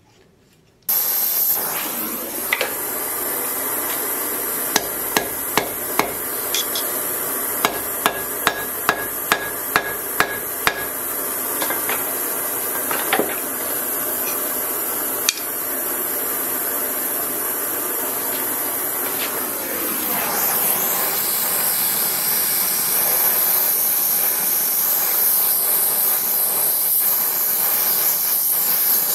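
Forging hammer striking steel on an anvil: about a dozen ringing blows, two or three a second, then a few single strikes. A steady hiss runs underneath and grows louder after about twenty seconds.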